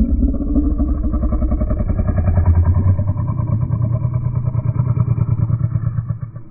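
An engine running with a fast, steady pulsing note, its pitch rising slightly at the start and the sound fading near the end.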